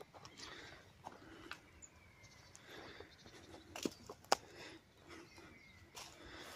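Footsteps through dry grass and fallen branches, with two sharp cracks of twigs underfoot close together a little after the middle.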